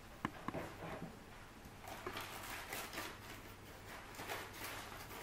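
Hands pressing brioche dough into a paper loaf mould: a few light knocks at first, then from about two seconds in a run of soft rustles and crinkles from the paper mould.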